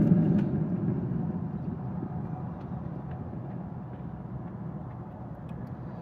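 A low rumble that fades away steadily, with a few faint ticks.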